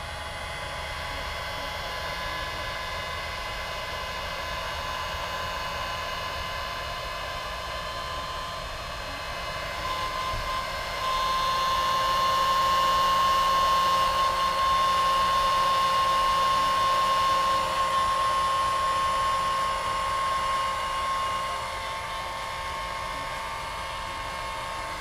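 Electric heat gun running steadily: a fan-motor whine over rushing air, louder for about ten seconds in the middle of the stretch. It is blowing hot air on a vinyl decal to soften it.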